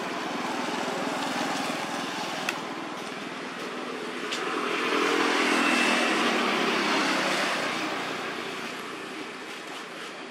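A motor vehicle passing, its engine noise swelling to a peak about halfway through and then fading away, with a couple of small clicks.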